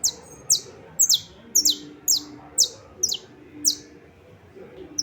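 Saffron finch singing: a run of about eight sharp, downward-sliding notes, roughly two a second, with a single short note near the end.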